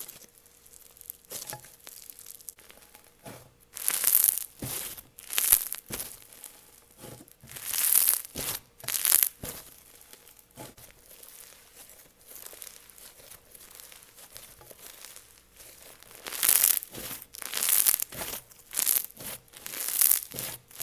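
Clear-glue snow fizz slime being stretched and squished, giving crunchy crackling and tearing sounds. It comes in several loud spells, with a quieter stretch in the middle.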